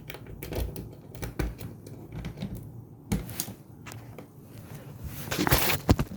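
Irregular light clicks and knocks from handling, with a louder scraping rustle and a couple of knocks near the end.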